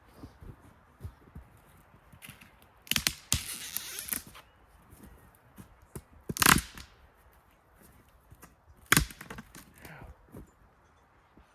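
Firewood being broken up: three loud, sharp cracks about three seconds apart. The first is a longer splintering crack lasting about a second, and small knocks come between them.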